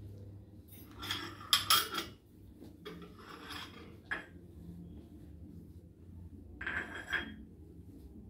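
Ceramic dishes clinking and scraping on a tiled countertop as it is wiped down with a sponge. A few sharp clinks come between one and two seconds in, with more clatter near the end.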